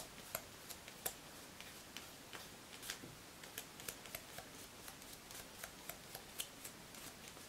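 Faint, irregular clicks and light taps, a few a second, as the sticky inhibition layer is wiped off freshly cured UV gel polish on plastic nail tips on a colour wheel.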